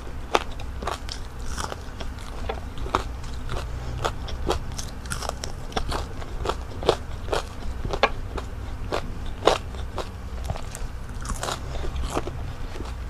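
Close-miked crunching and chewing of crispy breaded fried calamari rings: sharp, irregular crunches about two or three a second.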